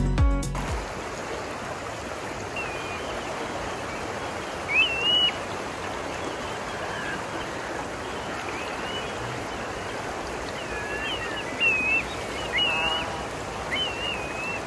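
Shallow river running over rocks: a steady rush of flowing water, with short high bird chirps now and then. Background music dies away in the first second.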